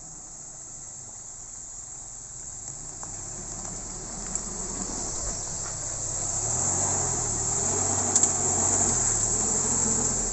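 Nissan Terrano 4x4's engine working at low speed on a muddy off-road track, its revs rising and falling and growing louder as the vehicle comes up close. A steady high buzz of forest insects runs underneath.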